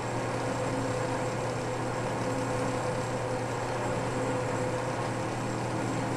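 South Bend 10K metal lathe running steadily, its spindle turning while a facing cutter is fed across the end of ABS plastic stock: an even hum with a steady tone over a light cutting noise.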